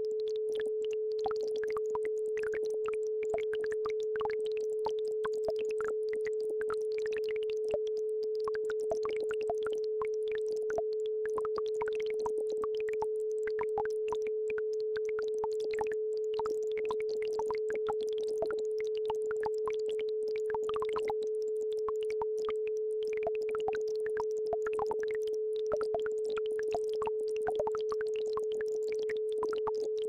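An isochronic tone at one steady pitch, a little below 500 Hz, laid over the trickling and bubbling of a babbling brook.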